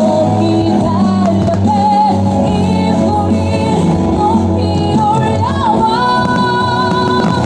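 Music with singing over steady instrumental backing, ending on a long held vocal note.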